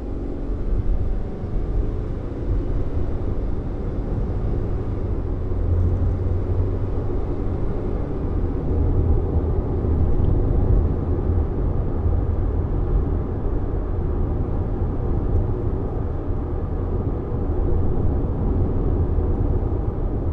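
Steady driving noise of a 2021 Subaru Forester Sport heard from inside the cabin: a low rumble of road and tyre noise over its 2.0-litre e-BOXER flat-four mild-hybrid engine, which is driving through a CVT.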